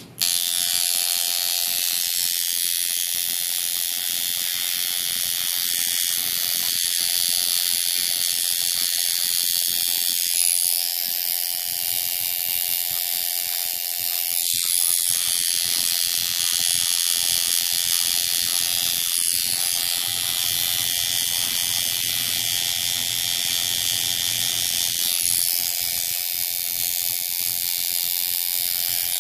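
Coil tattoo machine buzzing steadily while tattooing skin.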